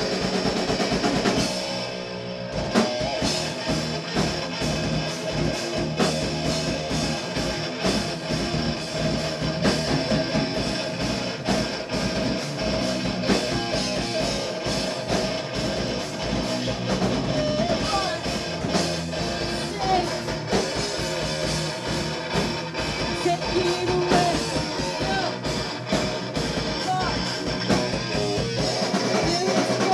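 Rock band playing live in a rehearsal room: electric guitar, bass guitar and drum kit together, with a steady drum beat throughout.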